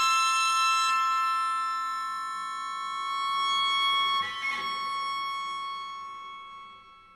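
Accordion holding a high, steady chord that swells a little and then fades away near the end, with a brief breathy, scratchy noise about four seconds in.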